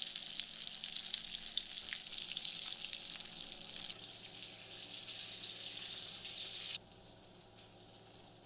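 Batata vadas (battered potato fritters) deep-frying in hot oil in a kadai, a dense crackling sizzle. It cuts off abruptly about seven seconds in, leaving only a faint hiss.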